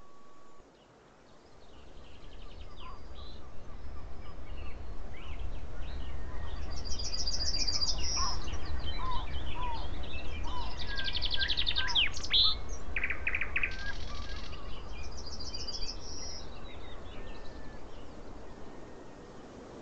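Several birds singing and chirping, with quick high trills and pulsed phrases over a low steady rumble. The birdsong fades in after a steady tone cuts off just after the start, and it fades down again near the end.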